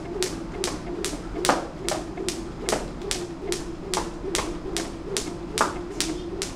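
Skipping rope slapping a concrete floor with each turn as a man jumps, a steady rhythm of sharp slaps about two and a half a second.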